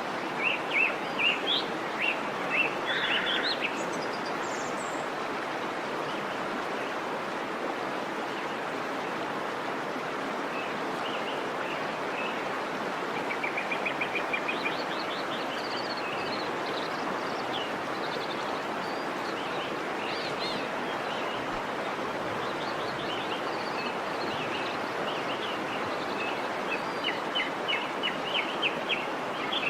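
Waterfall rushing steadily, with birds chirping over it in short runs near the start, around the middle and near the end, including a quick trill about halfway through.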